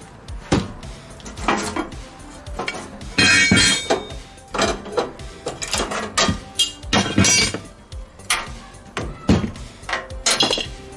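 Metal hardware and tools clinking and clattering in a string of irregular knocks as a seat is bolted down to a go-kart's steel frame, with a brief rattling burst about three seconds in.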